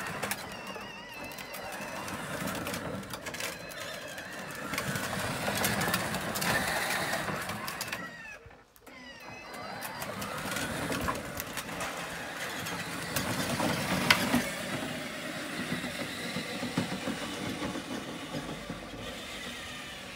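Peg Perego Gaucho ride-on jeep driving under remote control: its original 12 V electric motors and gearboxes whine, rising and falling in pitch, while its hard plastic wheels rumble over paving stones. It goes quiet for a moment about eight and a half seconds in, then pulls away again.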